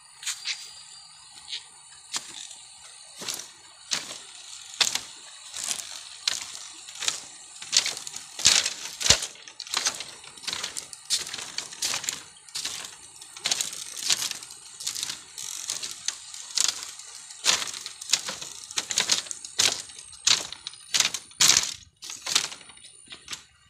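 Footsteps crossing a loose, broken bamboo-slat footbridge: the split bamboo slats clack and crack under each step, a little more than one step a second.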